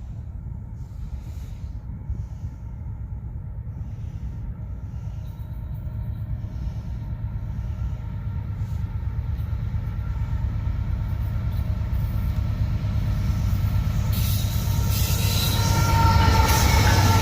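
Norfolk Southern freight train's diesel locomotives approaching, a steady low engine drone growing steadily louder. Rail and wheel noise builds over the last few seconds as the train draws near.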